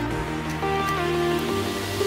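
Soft instrumental background music with long held notes.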